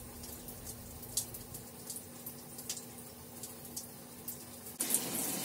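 Faint wet dripping and squishing from conditioner being worked by hand into a wet dog's tail, over a low steady hum. Near the end a hand sprayer starts running water.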